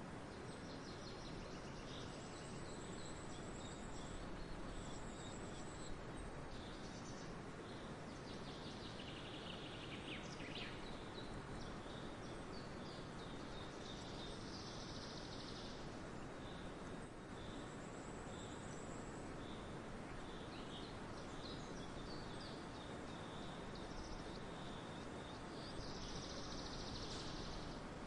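High-pitched chirping and calls of small birds, heard off and on in short spells, over a steady outdoor hiss.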